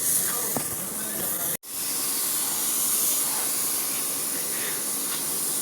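Compressed-air paint spray gun hissing steadily, cutting out abruptly for an instant about a second and a half in.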